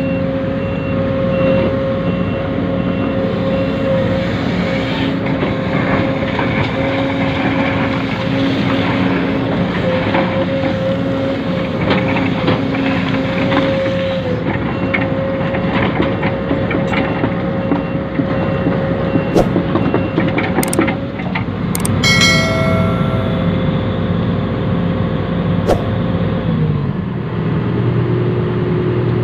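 Radio-controlled model dump truck running, with a steady motor whine under a simulated truck engine from its sound module. Reversing beeps repeat through the first half. A few sharp clicks come about two-thirds in, followed by a short air-brake-like sound effect.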